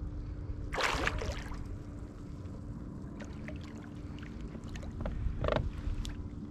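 A hooked blackfish (tautog) thrashing and splashing at the water's surface beside a kayak about a second in, followed by scattered small clicks and knocks and a second, shorter burst of noise near the end.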